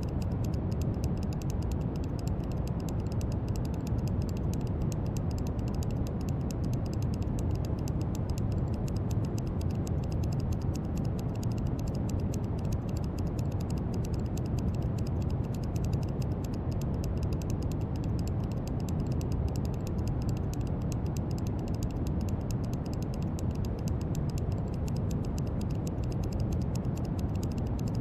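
Brown noise: a steady, deep rushing hiss, heaviest in the bass and unchanging throughout, with a faint fine crackle in the highs.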